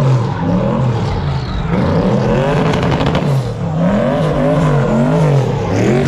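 A car engine revving hard and falling back over and over, its pitch rising and dropping roughly once a second, with the odd crackle.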